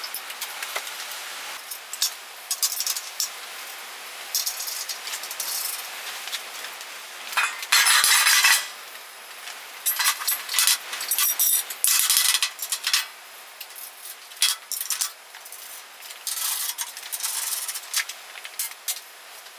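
Irregular metallic clinks and rattles of small parts and hardware being handled, with several short, louder bursts of rustling noise, the loudest about eight seconds in.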